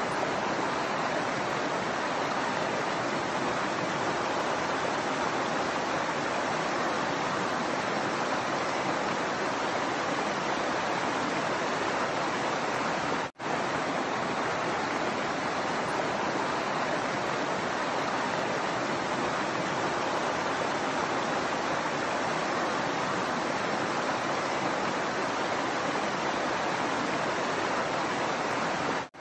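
Shallow rocky stream flowing over stones, a steady rushing and babbling of water. The sound cuts out for an instant about halfway through.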